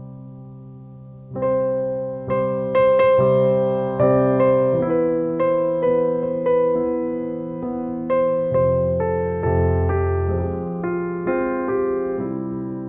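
Background piano music: notes and chords struck about twice a second, each fading, louder from about a second in.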